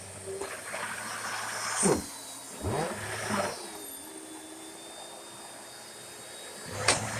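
Vacuum cleaner (sweeper) running with a steady motor hum and a high whine, its pitch dipping and rising two to three seconds in. A sharp knock comes near the end.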